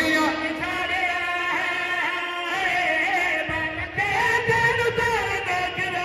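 A man chanting a Shia mourning recitation into a microphone, his voice carried over loudspeakers in long held, sliding melodic lines.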